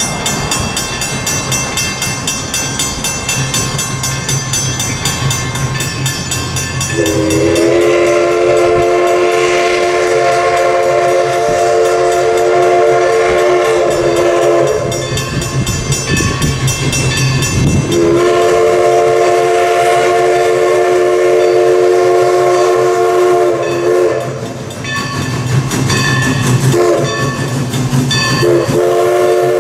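Steam chime whistle of a 1920 Alco 2-6-0 Mogul steam locomotive sounding a chord of several notes in the grade-crossing pattern: long, long, short, long. Before the first blast, about seven seconds in, only the locomotive's running rumble is heard.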